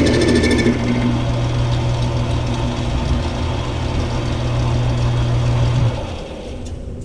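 Metal lathe running steadily while turning a tube. A fine, rapid cutting chatter stops under a second in. The motor hum cuts out at about six seconds, and the lathe winds down.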